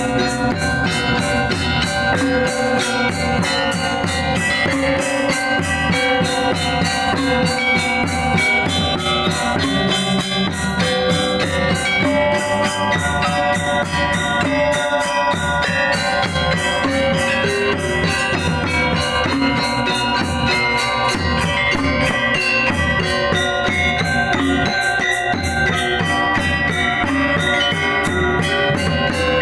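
Balinese gamelan gong ensemble playing: bronze metallophones and gongs ring in dense, fast interlocking patterns over drums, with quick, even strikes.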